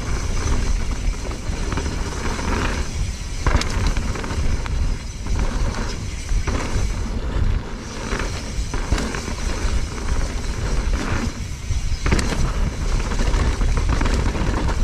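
Wind buffeting an action-camera microphone as a mountain bike descends a dirt singletrack at speed, with tyres rolling over the trail and the bike rattling over bumps.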